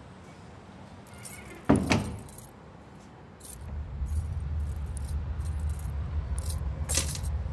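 A sudden loud hit about two seconds in, then a low steady drone with several short, high metallic rattles over it.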